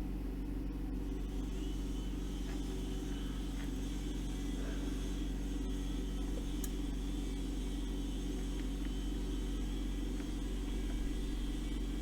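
Steady low electrical hum with a buzzing edge from the amplifier test bench, which is powered up and running a test signal.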